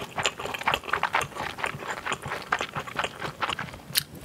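Close-miked chewing of a fried fishcake: moist, irregular clicking and crackling mouth sounds, with a sharp bite near the end.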